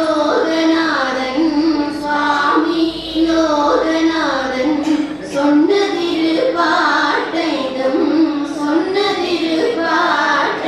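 Women singing a Tamil devotional song together into a microphone, a slow melody with held notes that slide between pitches.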